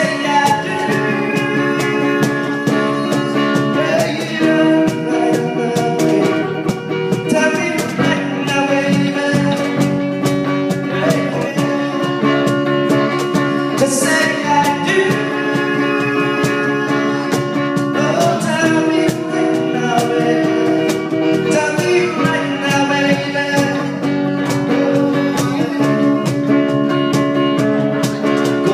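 Live band playing a song with a singer, the music running at a steady, full volume with a cymbal-like crash now and then.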